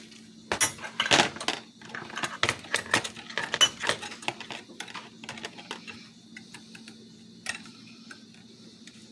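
Metal rotisserie spit rod and its fork clamps clinking and rattling as they are worked by hand, the fork stuck fast on the rod. The clicks come thick for the first four seconds or so, then thin out to a few.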